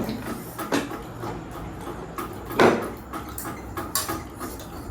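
Cutlery clicking and knocking against a dish during eating, in scattered light taps, with one louder short noisy sound about two and a half seconds in.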